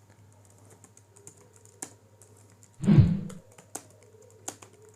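Fast, irregular typing on a computer keyboard, keys clicking in quick succession. About three seconds in comes a single loud, dull thump.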